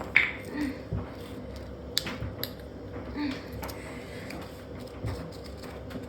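Scattered clicks, knocks and rattles of metal and plastic parts as a washing machine is being pulled apart by hand.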